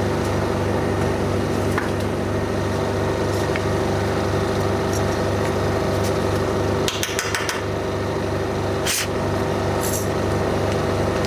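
Air compressor and the diesel generator powering it running steadily while the air tank builds pressure. A few sharp clicks and knocks come about seven and nine seconds in.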